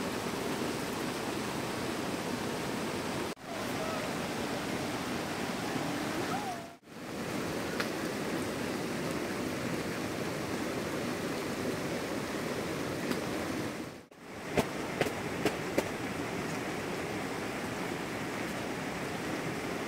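Steady rain falling, a continuous hiss that breaks off for a moment three times, with a few sharp taps about three-quarters of the way through.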